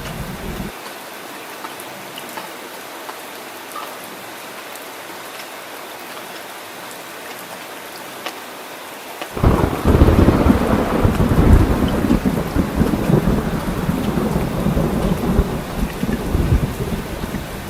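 Steady rain falling, heard as an even hiss. About halfway through, a loud, low thunder rumble starts suddenly and continues under the rain.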